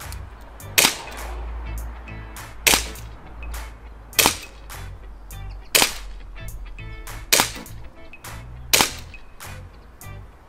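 Six single shots from an ICS Korth PRS gas blowback airsoft pistol running on green gas, each a sharp report with the slide cycling, spaced about a second and a half apart. Background music plays faintly underneath.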